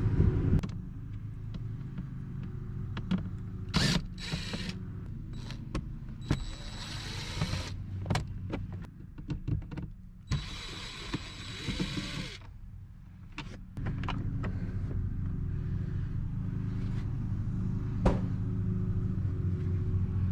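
Screws being taken out of a glove box with a small power screwdriver: two short whirring runs among clicks and knocks of the screws and plastic panel, over a steady low hum.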